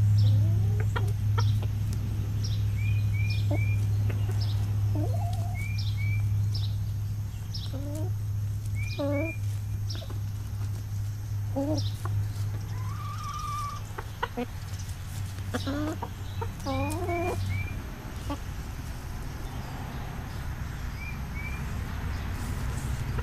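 Domestic chickens clucking with short, scattered calls as they forage close by, with high bird chirps in the background. A steady low hum runs under them and fades out about three-quarters of the way through.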